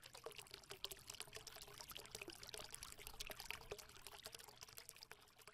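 Faint pouring, fizzing water with a dense patter of tiny crackles, steady throughout.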